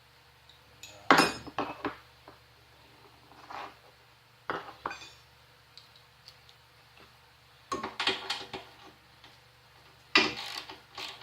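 Metal tools and parts clinking and clanking in scattered bursts while a molder planer is being taken apart; the loudest clank comes about a second in.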